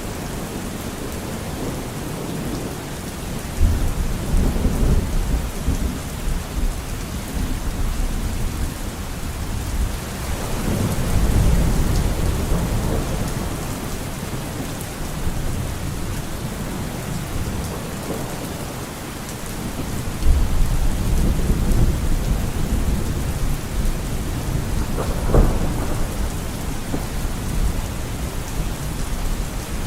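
Steady rain with thunder rolling through it: low rumbles swell up about four, ten and twenty seconds in, and a sharper crack of thunder comes about twenty-five seconds in.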